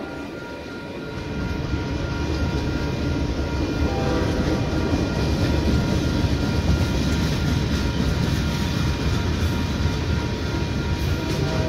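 Union Pacific manifest freight train rolling past, its wheels rumbling on the rails. The rumble grows louder after about a second and then holds steady.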